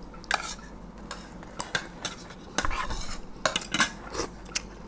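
Eating utensils clinking and scraping against plates: a string of irregular short clicks and light scrapes as food is scooped up.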